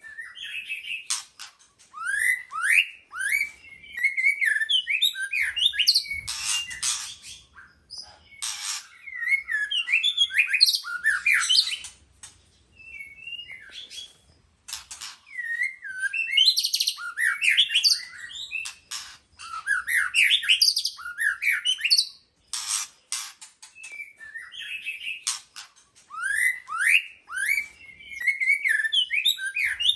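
White-rumped shama singing: bursts of varied, fast whistled phrases with rising and falling notes mixed with sharp clicking notes, separated by short pauses.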